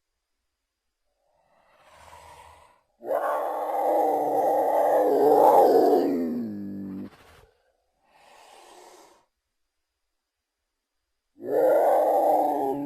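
Troodon dinosaur creature-call sound effects, separated by silences: a faint short call, then a loud pitched call about three seconds in that lasts about four seconds and falls in pitch as it ends. Another faint short call follows, and a second loud call begins near the end.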